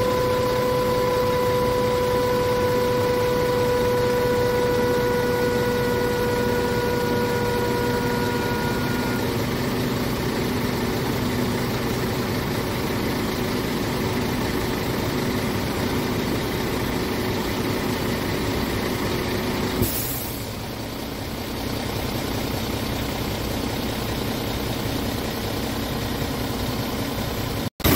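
Scania R450 truck's 13-litre inline-six diesel engine idling steadily. A steady high tone sounds over it for about the first nine seconds, and there is a brief hiss about twenty seconds in.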